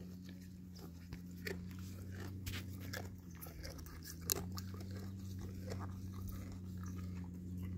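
A calf biting and chewing feed from a hand, with irregular crunches.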